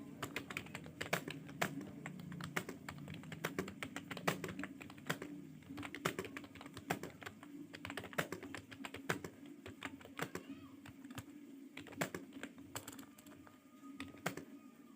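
Fast typing on a computer keyboard: a quick, irregular run of keystroke clicks that thins out near the end.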